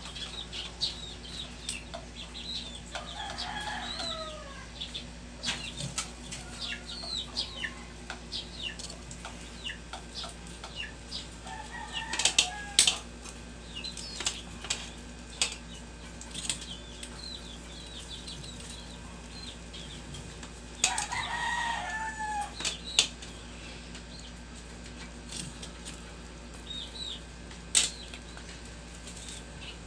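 Birds calling: many short high chirps, with three longer, louder calls a few seconds apart. Sharp metal clicks from tongs on the grill's wire grate come now and then.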